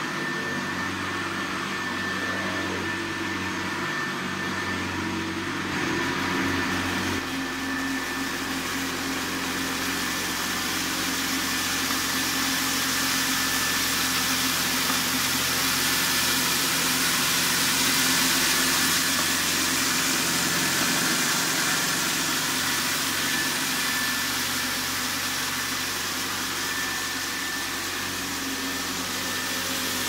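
1983 Hoover Ranger U4274 upright vacuum cleaner running steadily while it is pushed over carpet: a motor hum with a thin high whine over a hiss of airflow.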